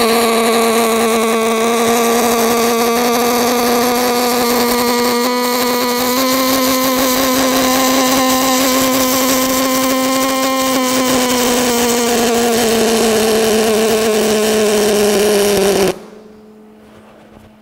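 Pulse MIG welding arc from an ESAB Warrior Edge power supply: a steady, pitched buzz with a hiss over it. Its pitch steps up slightly about six seconds in and slides down from about eleven seconds as the wire feed speed is turned up and then down, under synergic one-knob control that holds the arc length. The arc cuts off about a second before the end.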